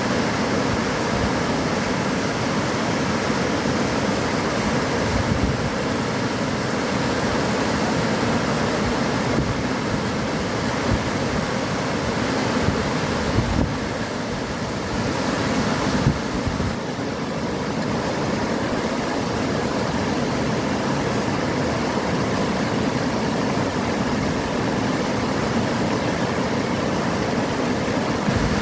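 Floodwater rushing in white rapids over a submerged embankment, a steady, unbroken noise.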